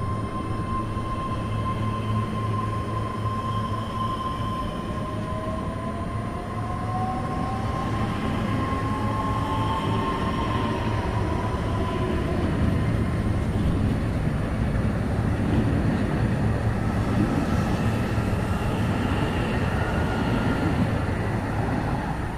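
EG2Tv Ivolga electric train running past along the rails, a steady rumble with a whine from the train; a second whine rises in pitch through the middle, and the rumble grows heavier in the second half.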